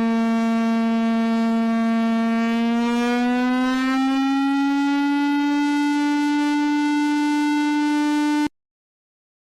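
A single sustained electronic alarm tone in the style of an emergency-alert siren, buzzy and rich in overtones. About three seconds in its pitch glides slowly upward a few steps, then holds steady until it cuts off abruptly about a second before the end.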